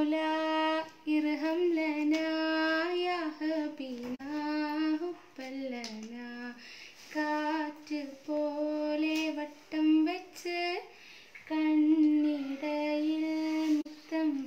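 Unaccompanied voices, a woman's and a child's, singing a song in phrases of long held notes with a few short breaks between them.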